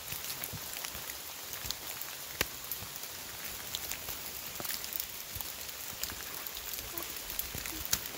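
Rain falling in woodland: a steady hiss with many scattered sharp ticks of drops landing close by.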